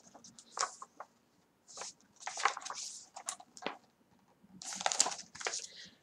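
Pages of a hardcover graphic novel being turned and the book handled: soft paper rustles and rubs with a few small clicks, loudest about two seconds in and again near five seconds.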